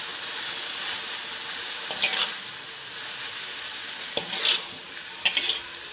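Papaya shoots frying in oil in a steel wok, sizzling steadily. A metal spatula scrapes and clinks against the wok three times as they are stirred, about two seconds in, about four seconds in and near the end.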